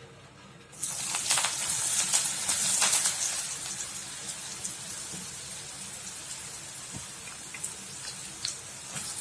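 Masala-coated peanuts going into hot oil about a second in and deep-frying: a sudden loud sizzle that settles to a steady sizzle with scattered pops.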